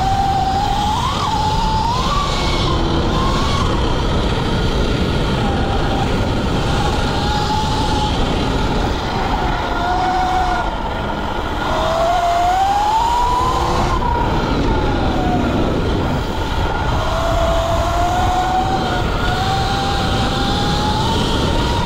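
Sur-Ron electric dirt bike's motor and drivetrain whining, rising and falling in pitch as the rider rolls the throttle on and off, over steady wind rush and trail noise.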